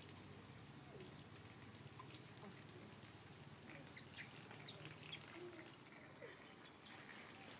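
Faint, short high squeaks and chirps from young macaque monkeys, scattered and more frequent in the second half, over a steady faint patter of rain.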